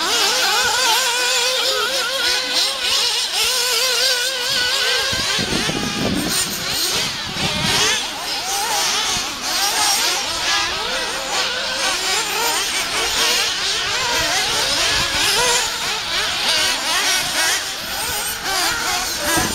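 Several nitro RC buggies racing, their small high-revving engines overlapping and rising and falling in pitch as they accelerate and brake.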